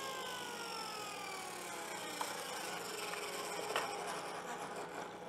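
Table saw winding down after being switched off, its whine falling steadily in pitch. There are a couple of light wooden knocks as the cut piece is handled.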